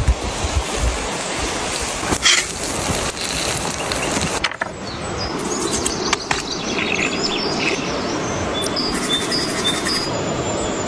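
Steady rushing outdoor noise, with short high bird chirps over it in the second half.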